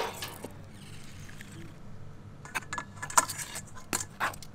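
Metal tongs lifting a cooked mud crab out of a pot of water with a splash and drip, then a string of sharp metallic clinks as tongs and crab knock against a metal colander.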